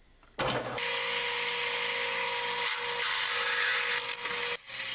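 Harbor Freight X2 mini mill drilling through an aluminum block with a 7/8-inch drill bit: a steady whine from the spindle over the hiss of the bit cutting and throwing chips. It starts abruptly about half a second in and cuts off near the end.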